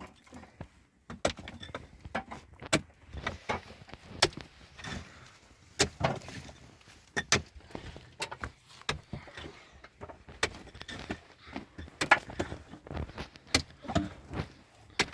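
Irregular knocks, clicks and clatter of objects being handled, a few sharp strikes every second with quieter scraping between them.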